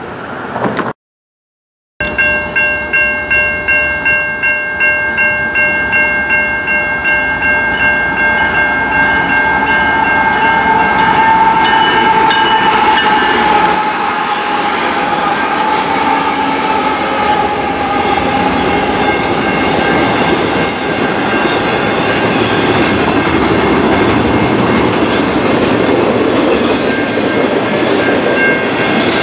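BNSF diesel locomotives pulling a freight train of trailer-carrying flatcars past at track side, with engines and wheels rumbling. A railroad crossing bell rings about twice a second over the passing train.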